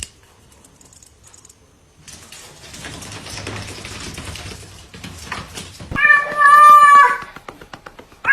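A cat gives one long, loud meow about six seconds in, after a few seconds of faint rustling and clicks.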